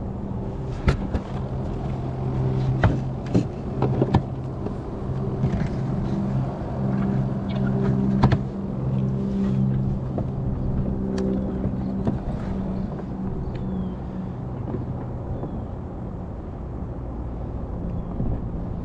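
A low motor hum with a steady pitch that fades in and out, with scattered sharp clicks and knocks of fishing tackle being handled in a kayak, most of them in the first half.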